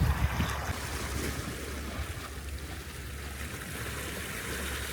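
Wind rumbling on the microphone over a steady wash of coastal surf.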